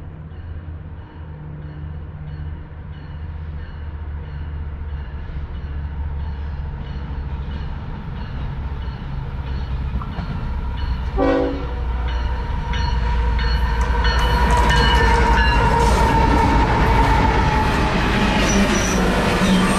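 Coal train headed by Canadian Pacific GE ES44AC diesel-electric locomotives approaching and passing close by. A low engine rumble grows steadily louder and is loudest as the locomotives go by, about two-thirds of the way in, then turns into the rolling clatter of coal hopper cars on the rails.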